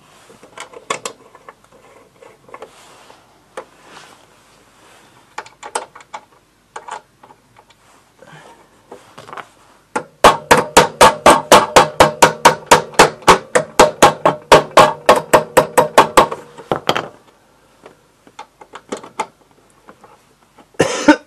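Small hammer tapping the trim strip along the side cover of a Motobécane AV89 moped to seat it flush. After some light clicks and knocks of handling, a quick even run of taps starts about halfway in, roughly six a second for about seven seconds, then stops.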